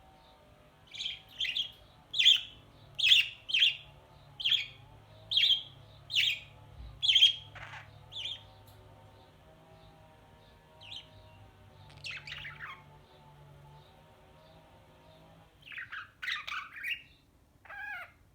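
Budgie (budgerigar) chirping: short, sharp calls about once a second for the first eight seconds, then a few scattered ones and a quick cluster near the end.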